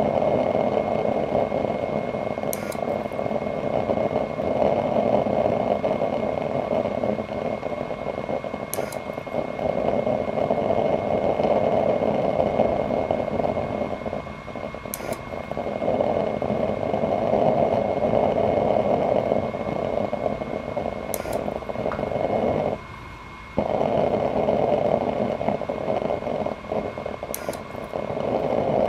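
Paint-can waste-oil stove burning under forced draft from a sirocco blower fan: a steady rush of flame and air with a thin steady whine over it. A faint tick comes about every six seconds, and the rush cuts out for under a second once, late on.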